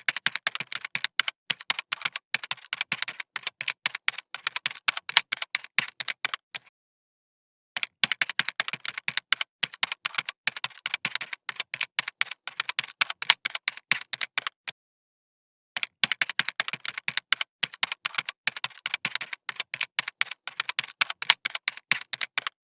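Rapid, irregular keyboard typing clicks in three runs of about seven seconds each, with about a second of dead silence between runs.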